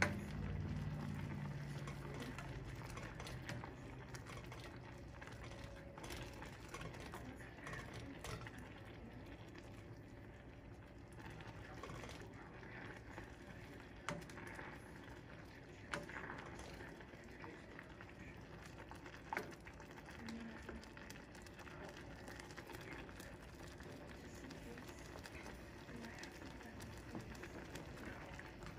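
Pot of instant noodles boiling on the stove, bubbling steadily, with a few sharp clicks of a plastic spoon against the pot as the noodles are stirred.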